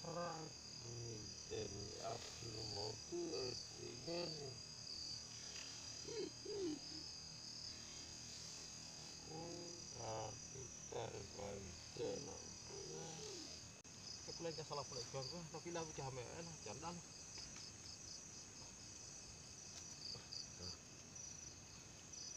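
Crickets and other night insects chirping steadily in a fast, even pulsing trill. Low, indistinct voices come and go over it.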